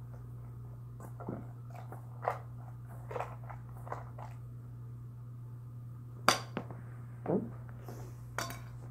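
Home-made slime squished and kneaded by hand in a stainless steel mixing bowl: scattered short wet clicks and squelches, the sharpest about six seconds in. A steady low hum runs underneath.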